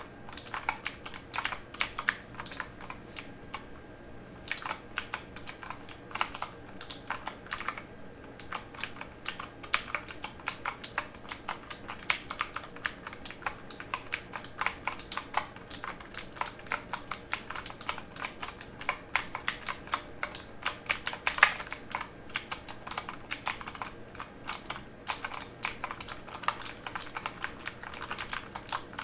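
Typing on a mechanical keyboard: a fast, irregular stream of sharp key clicks, with brief pauses about four and eight seconds in.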